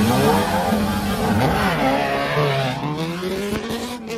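Inline-four sport motorcycles with SC Project aftermarket exhausts, a Kawasaki Z900 and a Benelli TNT 600i, accelerating hard from a drag-race launch. Their engines rev up through the gears, the pitch climbing and then dropping at each shift, and the sound grows fainter toward the end.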